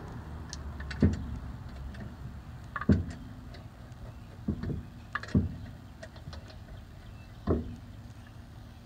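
Six or so sharp knocks and clunks, spaced unevenly, as a hand works at a car's refitted rear wheel and tyre.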